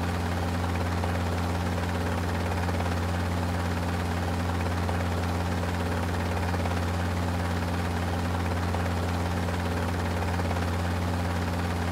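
Steady low hum of aircraft engines or rotors, holding one even pitch without rising or falling.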